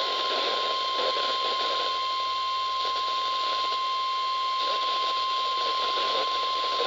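NOAA Weather Radio 1050 Hz warning alarm tone, one steady unbroken tone over radio static, sounded as a test of the weather radio tone alert system.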